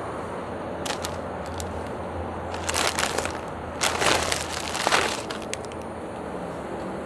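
Plastic snack packaging crinkling loudly in two bursts, about three and four to five seconds in: a clear multipack bag of small foil-wrapped mini snack packets being handled and the packets tipped out. A few small crackles come about a second in, as a cheese-ring puff is squeezed between the fingers.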